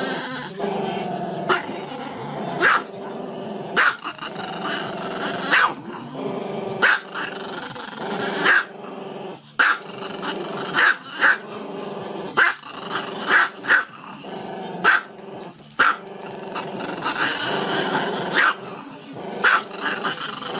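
Small black-and-tan dog with its muzzle raised, giving a continuous growly howl broken by sharp barks every second or so.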